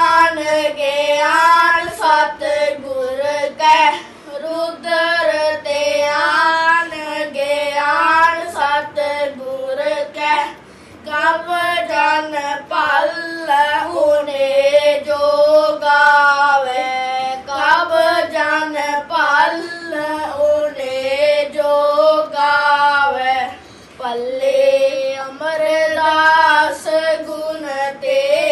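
Two young boys singing a Sikh devotional hymn in praise of Guru Amar Das together, with brief pauses between lines.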